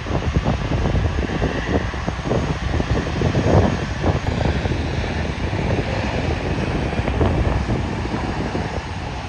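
Low, steady rumble of a Boeing 777-300ER's GE90 jet engines as the airliner comes in to land, with wind gusting on the microphone.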